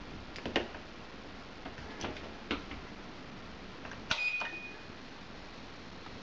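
A few short clicks and knocks from a dishwasher being handled, the last one about four seconds in followed by a brief high ringing tone.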